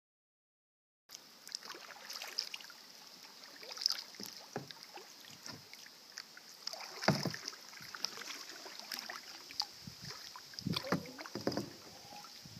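Kayak paddles dipping into and pulling through calm stream water, with irregular splashes and drips off the blades. The sound starts about a second in.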